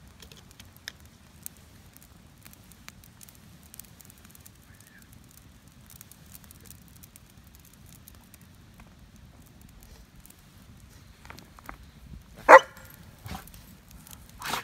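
A German Shepherd barks once, loud and short, near the end, followed by two fainter sounds. Before the bark, a campfire crackles quietly with small scattered pops.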